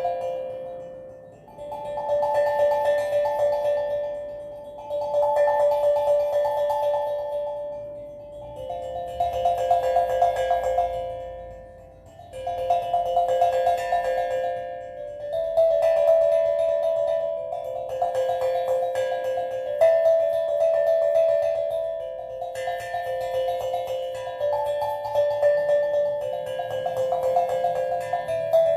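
Steel drum playing slow, calm phrases of a few ringing pitched notes, struck in quick repeated rolls that swell and fade every three to four seconds.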